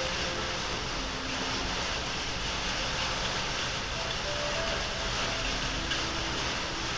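Steady, even rushing background noise, with a few faint short held tones.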